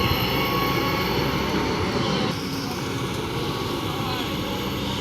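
Kobelco 220 excavator's diesel engine running steadily, easing off slightly about two and a half seconds in.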